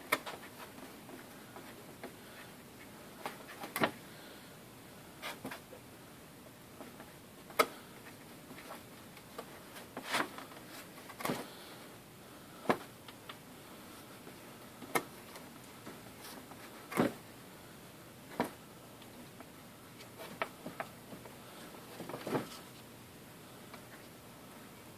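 Quiet handling sounds of hands working a gasket and a small tube of gasket sealer on a cardboard box: a dozen or so short, irregularly spaced taps and rubs over a faint steady hiss.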